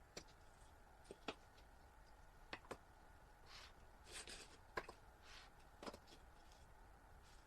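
Near silence over a low hum, broken by a few faint clicks and short rubbing swishes.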